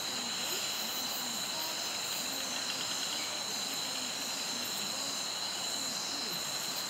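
Night insect chorus: crickets and similar insects trilling in a steady, unbroken high-pitched drone with several pitches layered together.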